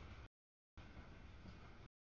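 Faint rumble and hiss of a freight train of tank cars rolling through a grade crossing. The audio cuts out to dead silence twice, about a quarter second in and again near the end.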